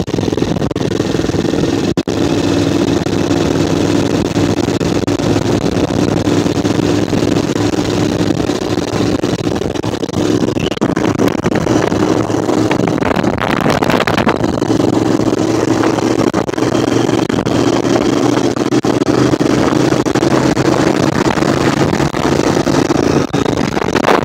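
Motorcycle engine running at a steady cruise, heard onboard under wind and road noise. About ten seconds in the engine note fades and wavers for a few seconds, then settles back to a steady note.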